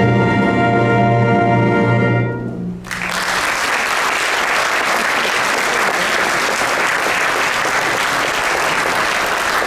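A choir and small instrumental ensemble hold a final sustained chord that dies away a little over two seconds in. Audience applause then starts and continues steadily.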